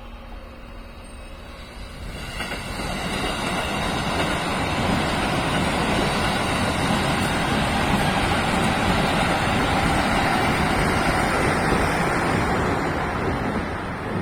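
An electric train passing. Its running noise swells over a couple of seconds, holds loud for about nine seconds, then starts to fade near the end.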